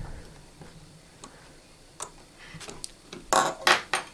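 Light ticks and clicks of a precision screwdriver working tiny screws into the metal battery connector cover inside an iPhone 6S. Near the end come two louder, short rushes of noise in quick succession.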